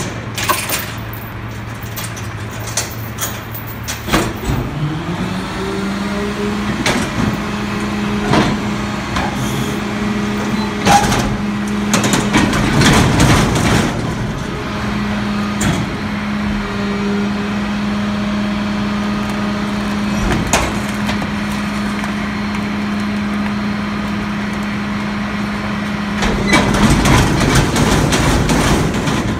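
Mack MRU garbage truck's diesel engine idling, then speeding up to a steady higher speed about four seconds in to run the McNeilus rear loader's hydraulics as it lifts and tips a steel dumpster into the hopper. Clanks and bangs as the dumpster is rolled, dumped and shaken, loudest near the end.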